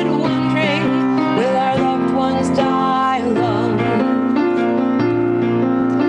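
A woman singing a slow, tender song with vibrato, accompanied by piano chords held under the melody.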